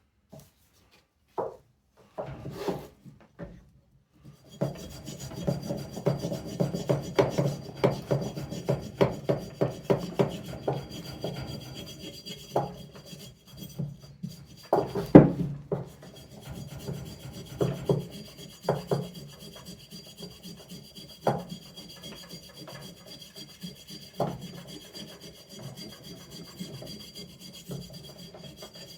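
Hand scrubbing on the rusty flywheel magnets of a vintage Briggs and Stratton engine, to clean the rust off them: a few light knocks, then rapid back-and-forth rubbing strokes at about two a second, with a louder knock about halfway through.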